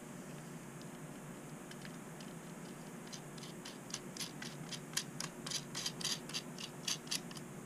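A quick run of small sharp clicks and ticks, several a second, from small screws, nuts and washers being handled and fitted by hand. The clicks start about three seconds in and grow louder near the end, over a low steady hum.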